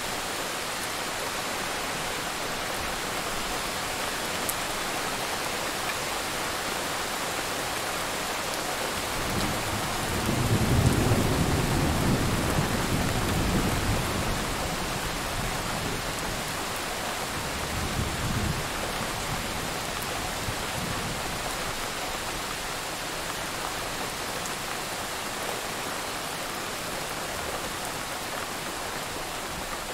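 Steady rain hissing. About ten seconds in, a long rolling rumble of thunder swells and fades, and a shorter, fainter rumble follows around eighteen seconds in.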